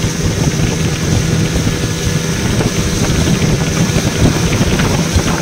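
Outboard motor running steadily at speed: a constant engine hum under wind buffeting the microphone and water rushing in the wake.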